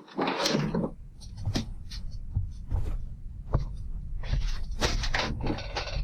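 Scattered knocks and clicks of things being handled, over a steady low rumble, with a short rustling burst at the start.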